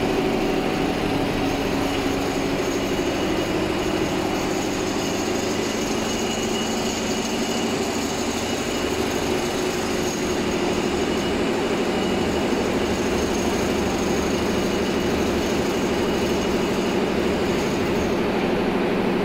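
Computerized quilting machine running, its single sewing head stitching a diamond pattern across the quilt: a steady, continuous mechanical whir with a constant low hum underneath.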